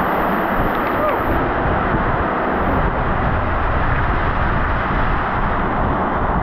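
Very strong rain falling in a heavy downpour onto a corrugated roof, a loud, steady hiss of rain that does not let up.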